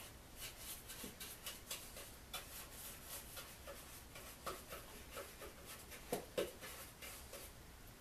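Paintbrush strokes on a wooden birdhouse: a faint, irregular series of short brushing and scratching sounds, several a second, with two louder taps a little after six seconds in.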